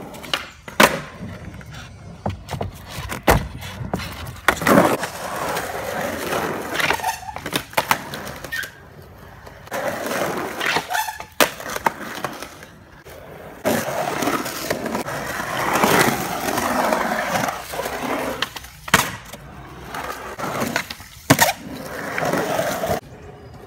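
Skateboard wheels rolling over smooth concrete, the rumble rising and falling, broken by repeated sharp clacks of the board popping and landing.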